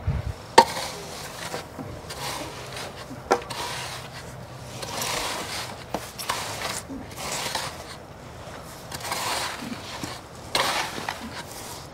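Wooden screed board scraped across stone dust along pipe rails, screeding a paver base level: repeated gritty swishes with scattered clicks and knocks.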